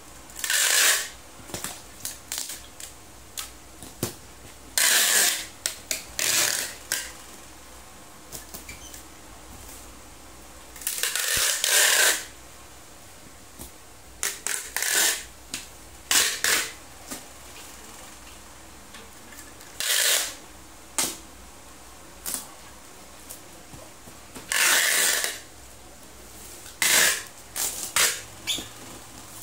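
Packing tape being pulled off a handheld tape-gun dispenser and pressed across a cardboard box, in about a dozen ripping strips of half a second to a second each, with short clicks and rustles between.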